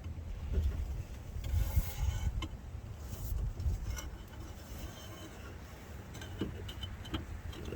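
Replacement axle shaft being slid into the steering knuckle of a 2002 Jeep Grand Cherokee front axle: metal rubbing and scraping with scattered small clicks, busiest in the first few seconds.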